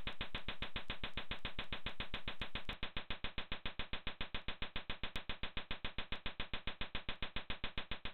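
Synthesized music score: a pitched electronic tone pulsing fast and evenly, about seven pulses a second. A little under three seconds in, the hiss above it drops away and the pulses stand out more sharply.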